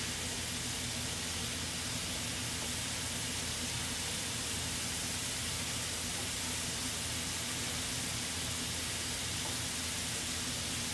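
Potato cubes deep-frying in a wide pan of hot oil: a steady, even hiss of bubbling oil, with a low hum underneath.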